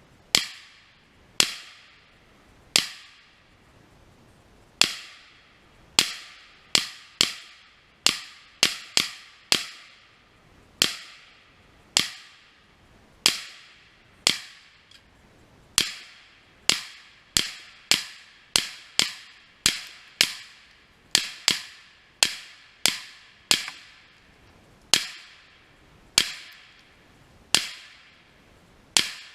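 Semi-automatic AR-15-style rifle firing 5.56 green-tip rounds: about thirty-five sharp shots at uneven spacing, some in quick strings of several shots a few tenths of a second apart. Each shot rings out briefly.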